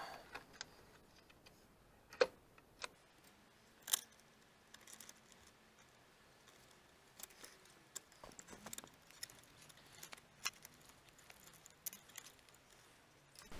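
Quiet handling of a 3D printer's control board and its wiring: small plastic clicks and rustles of connectors and cables, with two sharper clicks about two and four seconds in.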